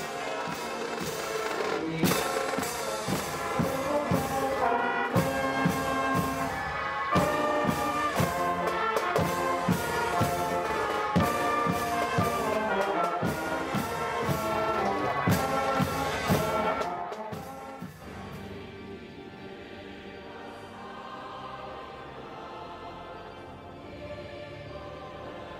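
Music with brass and a steady beat of strikes, giving way about 17 seconds in to a quieter, softer passage.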